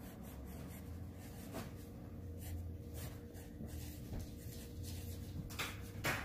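Pencil writing on paper: faint, irregular scratching strokes as a word is written by hand, with a louder short rustle near the end.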